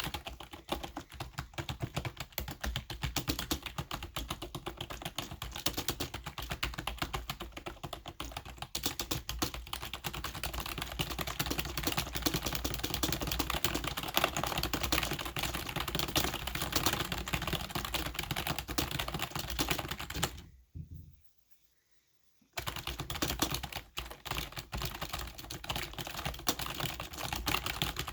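Fast, hard typing on a computer keyboard: a dense, rapid clatter of keystrokes that stops for about two seconds about three-quarters of the way through, then starts again.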